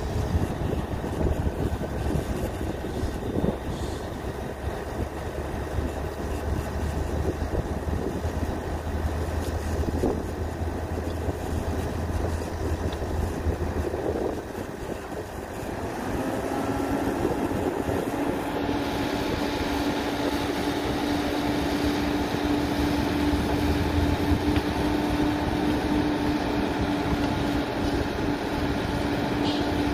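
Tipper truck's diesel engine running while its hydraulic ram raises the loaded dump body to tip soil. A little past halfway the sound shifts from a low rumble to a steadier, higher hum.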